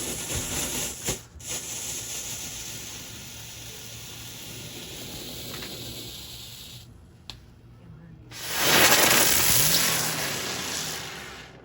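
Night Spy novelty firework hissing as it sprays sparks, a steady hiss that cuts out briefly with a single pop, then comes back louder before fading near the end.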